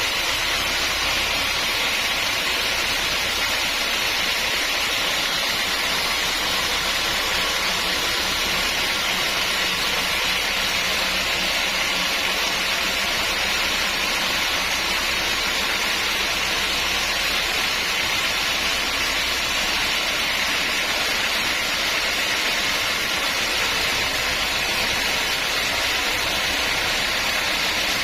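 Sawmill machinery running with a steady, even noise and a low hum underneath.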